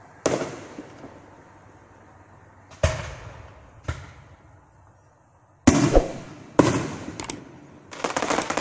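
Fireworks bursting: sharp bangs, each trailing off, with single booms about a quarter second in, near three seconds and near four seconds, then a quicker run of bangs and crackling over the last three seconds.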